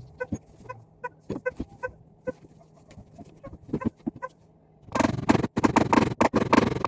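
Short, evenly repeated clucking calls of a hen. About five seconds in, a much louder, dense clatter sets in.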